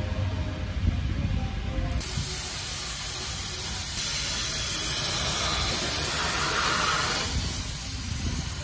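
High-pressure car-wash wand spraying water over a car's body: a loud steady hiss that starts suddenly about two seconds in, after a low rumble. This is the pre-rinse, blasting bugs and dust off the paint.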